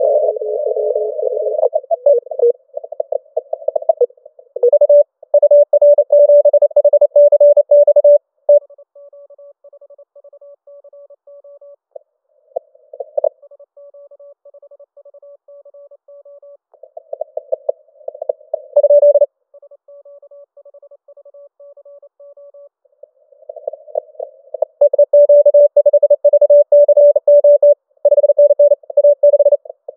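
Morse code (CW) from a Yaesu FT-891 HF transceiver during a contest: a single keyed tone near 600 Hz. It comes in loud runs of dots and dashes, with fainter keying in between and band noise around the received signals.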